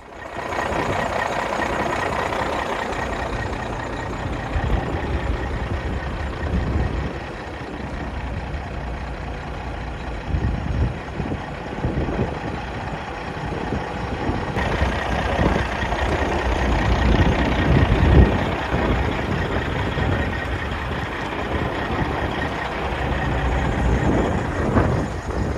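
Peterbilt 389 glider's 6NZ CAT C15 diesel engine idling steadily, with an uneven low rumble rising and falling over it.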